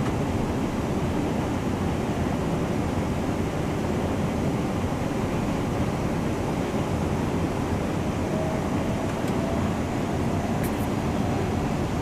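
Interior running noise of a Class 350 Siemens Desiro electric multiple unit: a steady low rumble of the train in motion. A faint, slowly rising whine comes in about eight seconds in, with a few small ticks near the end.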